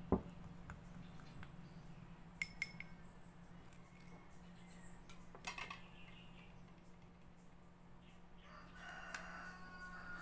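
A thin stick clinks against a small glass cup while stirring: one sharp clink at the start, then a few lighter ringing taps. Near the end a rooster crows once, for about two seconds.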